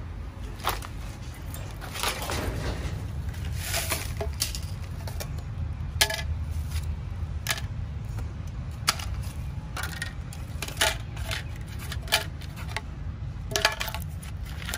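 Irregular clinks and clicks of small hard objects being handled and knocking together, over a steady low rumble.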